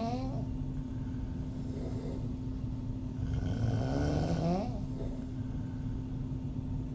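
A woman snoring through an open mouth: the tail of one snore right at the start, then one full snore from about three to four and a half seconds in that rises in pitch at its end. A steady low hum runs underneath.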